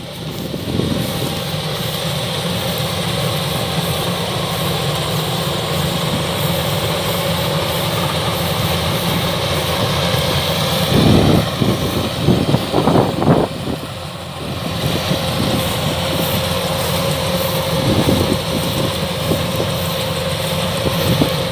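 Kubota DC-105X combine harvester's diesel engine running steadily as it cuts and threshes rice. There are a few louder, irregular bumps about halfway through.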